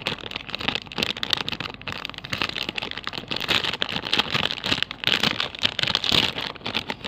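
Plastic packaging crinkling and crackling as a squishy toy is unwrapped, a dense run of small crackles.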